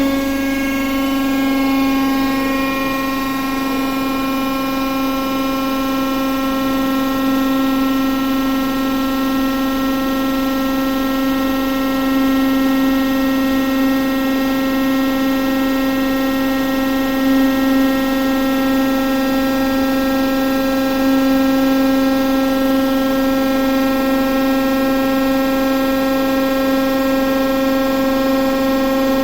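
The V-16 diesel engine (2A-5D49) of a TEP70 locomotive running steadily at idle with a steady high whine, freshly caught on its first start after overhaul.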